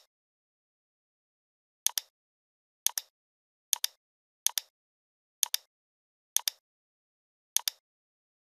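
Computer mouse button clicks: seven sharp press-and-release clicks, each a quick double click, spaced about a second apart with silence between them.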